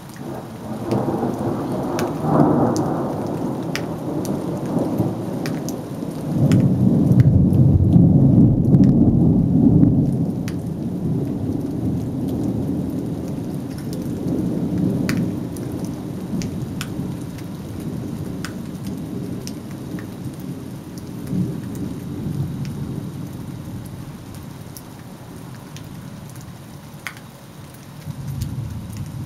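Thunder rolling over steady rain: a long, deep rumble builds about a second in, swells to its loudest after about six seconds, then dies away slowly. Sharp taps of raindrops are heard throughout.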